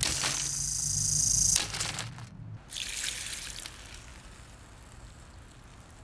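Lasko box fan's electric motor humming while a metal rod scrapes against its spinning hub, making a harsh, hissing grind that cuts off abruptly about one and a half seconds in. A shorter, fainter scrape follows a second later, then the sound dies away to a faint background.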